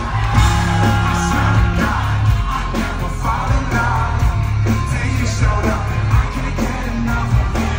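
Live band playing a pop-rock song, with heavy bass and drums under a male lead vocal sung into a microphone, and the crowd yelling along, heard from within the audience.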